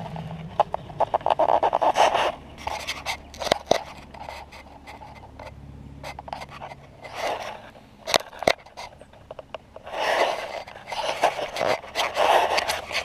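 Digging in soil with a hand digging tool: bursts of scraping dirt and grit, with a few sharp knocks of the blade, while a deep hole is dug out to free a buried iron shell fragment.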